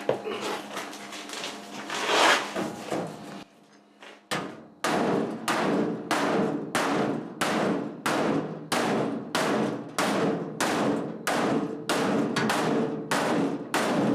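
A hammer pounds the thin, crinkled sheet-steel bottom of a Kobalt tool chest to flatten it. About five seconds in, after a few scattered knocks and a brief pause, it settles into steady blows of about two a second, each with a short metallic ring.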